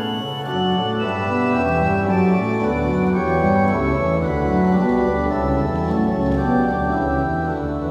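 Church pipe organ playing slow, sustained chords, with deep bass notes coming in about a second in.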